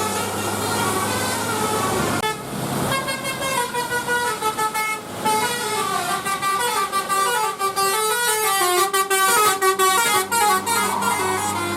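A bus's Basuri 'telolet' multi-trumpet musical horn playing a quick tune of short stepped notes, over the steady hum of the idling engine. The tune breaks off for under a second with a brief hiss about two seconds in, then runs on.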